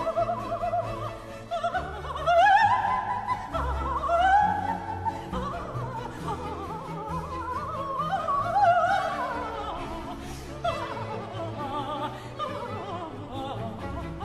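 Soprano singing a fast, virtuosic baroque opera aria with vibrato and quick coloratura runs, climbing in the first few seconds and sweeping down later. A baroque string orchestra accompanies her with steady low notes underneath.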